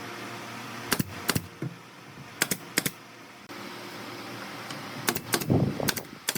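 A series of sharp knocks or clicks, mostly in pairs about a third of a second apart, with a rougher clatter a little after five seconds in: hard objects striking during woodworking.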